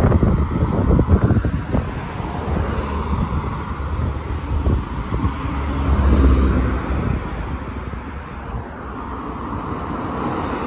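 Road traffic: cars driving past, with one passing close and loud about six seconds in and another nearer the end. Wind gusts buffet the microphone during the first couple of seconds.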